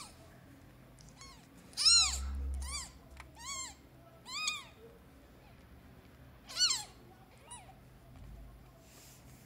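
Newborn kittens mewing: about six short, high-pitched cries, each rising then falling in pitch. The loudest comes about two seconds in, with a dull low thump under it.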